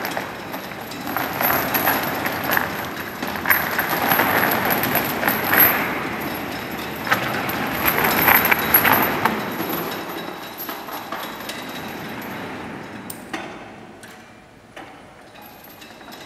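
Heavy steel chains clanking and a jointed fibreglass figure scraping and knocking across a hard floor as the chains drag it. The scraping dies down sharply about three-quarters of the way through, as the figure is hoisted clear of the floor.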